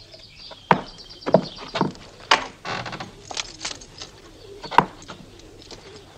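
Scattered light knocks and clicks, about half a dozen sharp ones among softer rustles, of someone moving about a room and handling things.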